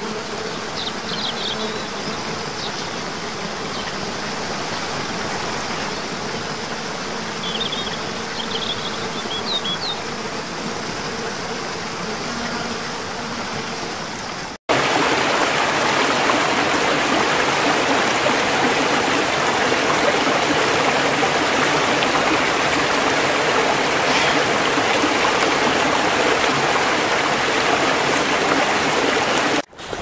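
Water rushing steadily over a rocky cascade, with a few faint high chirps in the first half. About halfway through it cuts abruptly to the louder, fuller rush of a stream tumbling between boulders.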